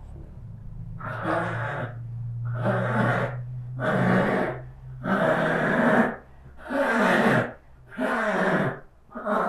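A person groaning through heavy, forceful breaths: six long pushes in a row, about a second apart.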